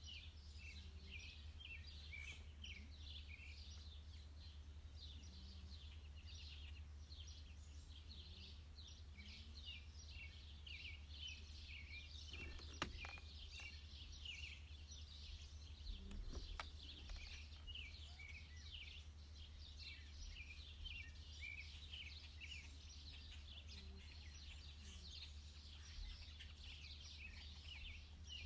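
Faint, continuous chorus of rapid high-pitched bird chirps over a steady low rumble, with a couple of soft clicks partway through.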